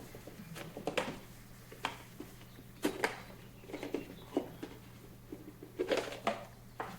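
Irregular light clicks and knocks of plastic parts and cables being handled as the recorder's electronics box is fitted into its waterproof enclosure, over a faint steady hum.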